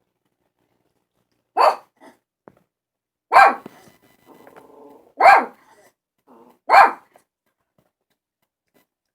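A dog barking four times, about one and a half to two seconds apart, with softer, lower sounds between the barks.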